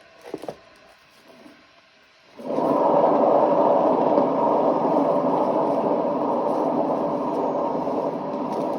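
Hair dryer switched on and running steadily, blowing air across wet acrylic paint, starting about two seconds in after a couple of faint clicks.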